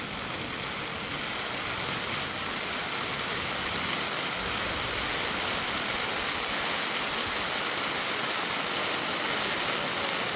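Stage waterfall firework, a row of hanging spark fountains, spraying sparks downward with a steady rushing hiss. It builds over the first couple of seconds as the ignition runs along the bar, then holds level.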